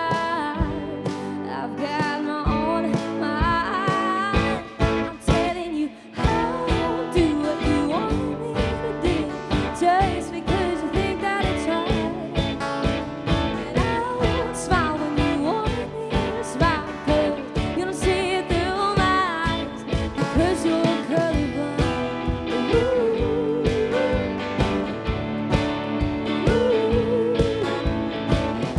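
Live band song: a woman sings lead over electric guitar and a drum kit keeping a steady beat.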